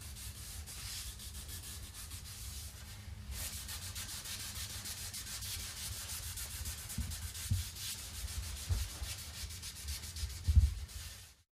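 Cloth rubbing briskly along a stained wooden bow limb, rubbing the finish into the wood: a steady dry swishing with many quick strokes. A few soft low knocks from handling the bow come in the second half, the loudest near the end, and the sound stops abruptly just before the end.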